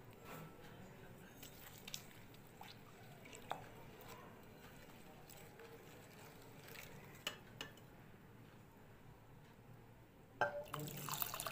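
Silicone spatula stirring a wet milk-powder mixture in a glass bowl, with faint scattered taps and clinks against the glass. Near the end, liquid tea is poured in with a splash, the loudest sound.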